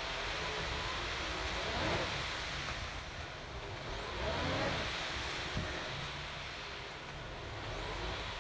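Concrete mixer truck running on site, a steady diesel rumble whose note rises and falls twice, with a single sharp click partway through.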